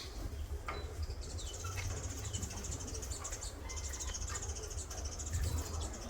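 Faint, high-pitched insect chirring in two long stretches, with a few faint bird chirps and a low wind rumble underneath.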